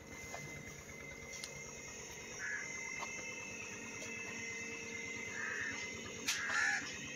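Quiet rural farmyard ambience with a few short bird calls scattered through it, the last two louder, near the end.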